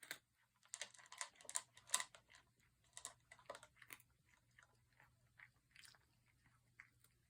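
A cat eating, with irregular crunching chews: they come quickly for the first four seconds or so, then grow sparser and fainter.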